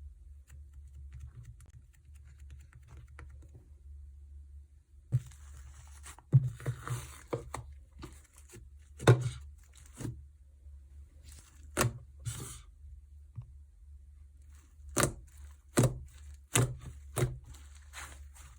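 Slime being played with by hand: faint crackling at first, then a run of sharp pops and squishy crackles from about five seconds in. A steady low hum runs underneath.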